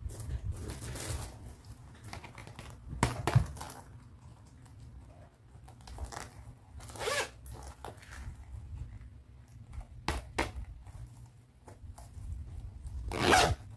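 Zipper of a small pink polka-dot pouch being pulled open and shut: about five quick zips a few seconds apart, the loudest near the end, with handling rustle between them.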